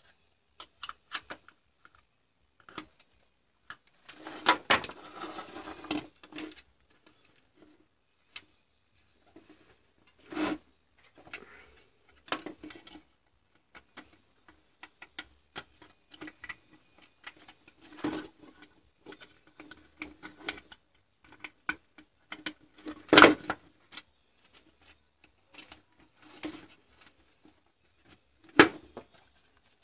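Hands handling an opened cordless-drill battery pack's plastic case, lithium-ion cells and wiring: irregular small clicks, taps and rustles. A longer rustling stretch comes about four to six seconds in, and sharper knocks of plastic come every few seconds, the loudest about three quarters of the way through.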